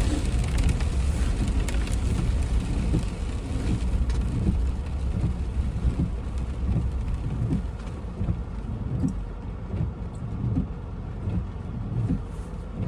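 Car driving in heavy rain: a low road and engine rumble with rain hitting the car. The rumble eases off about halfway through, leaving scattered low knocks.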